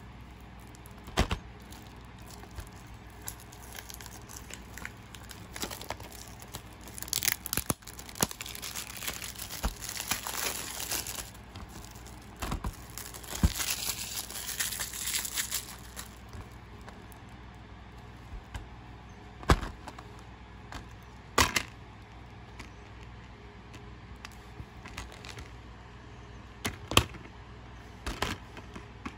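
Cellophane shrink wrap being torn and peeled off a plastic DVD case, crinkling in two long stretches. Several sharp clicks and snaps from the plastic case being handled and opened, two of them near the end.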